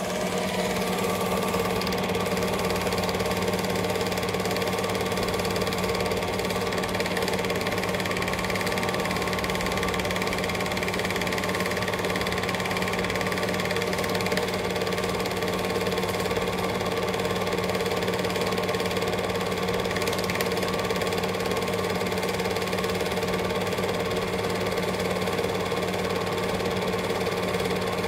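Cine film projector running: a steady mechanical clatter from the film-advance mechanism over a low motor hum. It grows louder during the first second, then holds steady.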